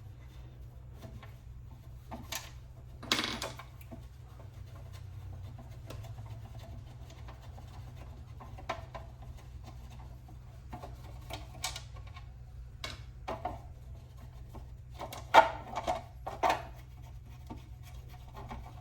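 Hand-work noises from a key cutting machine being taken apart: scattered clicks, knocks and scrapes of its metal cover, screws and tools being handled, with a few louder clatters, the loudest about fifteen seconds in, over a steady low hum.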